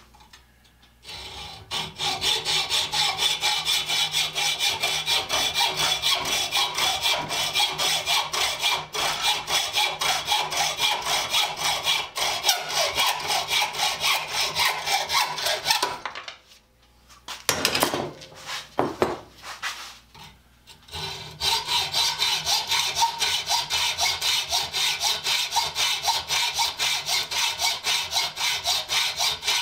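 Hand hacksaw with a coarse 18-tooth blade cutting through thick metal bar stock held in a vise, in steady back-and-forth strokes. The strokes stop for a few seconds past the middle, with a couple of short scrapes, then start again.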